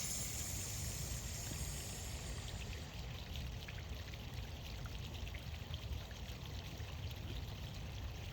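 Steady running or trickling water, with a low rumble underneath.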